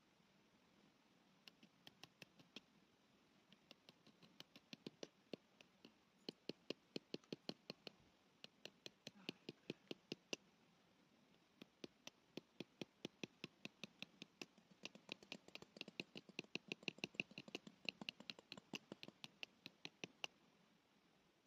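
Rapid series of light knocks, several a second, in runs with a couple of short pauses: a tent peg being tapped into the turf while a canvas lavvu tent is pitched.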